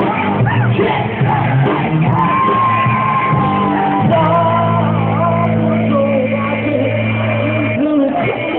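A rock band playing live with a singer's voice over it. About four seconds in, the band settles into a steady held chord under the sung line.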